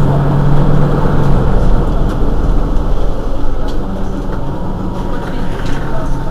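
Mercedes-Benz Citaro G articulated city bus running, heard on board: its engine's steady low hum over rumble and road noise. The hum drops away about a second in and comes back more faintly later.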